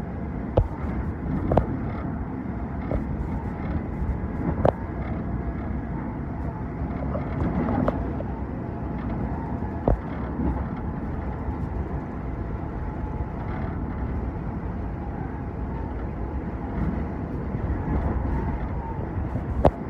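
Steady rumble of an Amtrak passenger train running at speed, heard from inside the car, with a few sharp clicks at irregular moments.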